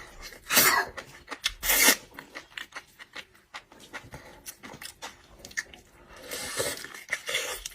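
Hard seafood shells being handled and scraped: a run of small clicks and rasping rubs, with two short loud scrapes about half a second and a second and a half in, and a longer rasp near the end.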